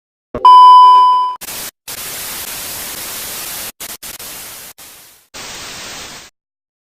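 A loud, steady electronic beep lasting about a second, followed by several bursts of hissing static that cut in and out and stop about six seconds in.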